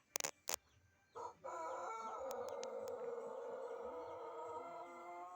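Ayam Pelung rooster crowing. A short opening note about a second in leads into a long, drawn-out crow held steadily through the rest, the long crow this Indonesian breed is kept for. Two sharp clicks come just before it.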